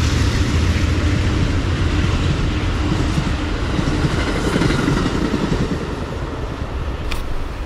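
Two Amtrak passenger trains passing each other at speed: a loud, steady rush of steel wheels on rail over a deep rumble, fading over the last couple of seconds as the trains go by.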